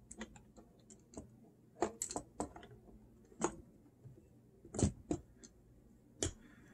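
Metal motor plate and plastic linkage parts of a Technics SL-3300 turntable clicking and knocking against the chassis as the plate is worked back into place. About a dozen irregular sharp clicks, with two heavier knocks about five seconds in.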